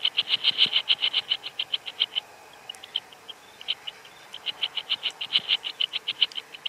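A locust stridulating: high, rapid chirp pulses at about nine a second. A first train fades out about two seconds in, a few scattered chirps follow, and a second train begins about four and a half seconds in.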